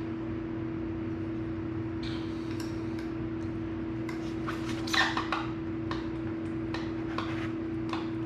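Scattered metallic clicks and clinks from hand tools working a plug into a motorcycle tire's nail hole, the loudest cluster about five seconds in, over a steady hum.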